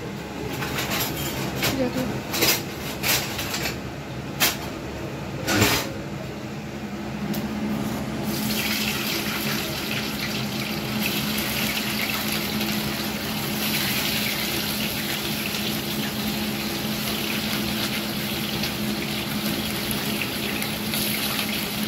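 Soya chaap pieces sizzling as they fry in hot fat in a pan; a steady hiss that sets in about eight seconds in, after a few clinks of utensils.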